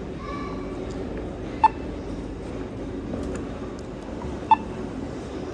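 Short electronic beep sounding twice, about three seconds apart, over a steady background hum.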